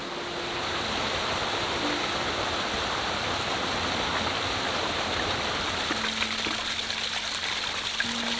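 Water rushing over rocks in a small rainforest stream and waterfall, a steady splashing rush. From about six seconds in the water spatters more sharply as a bottle is held under a falling trickle to fill it.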